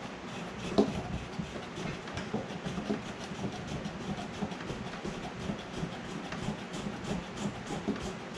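Steady run of light clicks and knocks, a few a second, from hands working a plastic fitting and gasket on a cooler, with one sharper knock about a second in.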